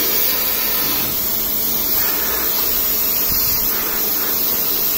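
Pressure washer running, its wand blasting a high-pressure water jet into the swivel base of a removed kitchen faucet: a steady, loud hiss of spray with a faint hum underneath. The jet is flushing gritty calcium deposits out of the seized swivel joint.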